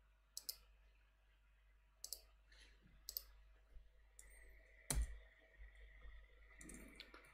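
Faint, sharp clicks of a computer mouse and keys, spaced a second or so apart, with one louder click and thump about five seconds in.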